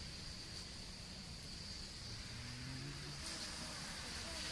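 Outdoor ambience led by a steady, high-pitched insect drone, with faint distant voices about halfway through.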